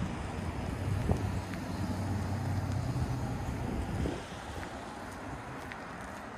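Low engine hum of a passing motor vehicle, louder for about the first four seconds and then dropping away, over wind noise on the microphone.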